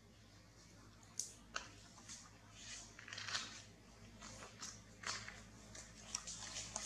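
Small monkey eating and moving on a branch: soft, irregular crunches and leaf rustles, several a second at times.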